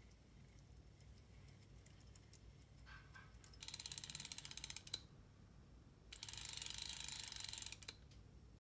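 Conventional fishing reel's ratchet clicking rapidly as the handle is turned, in two runs of about a second and a half each, with faint ticking before them.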